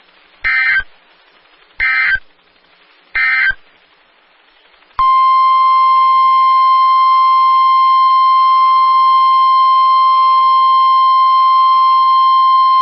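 Emergency Alert System SAME header: three short bursts of digital data squawks, each repeated the same, about a second and a half apart. These are followed, about five seconds in, by a single loud steady alert tone lasting about nine seconds: the weather radio's attention signal that announces a new warning.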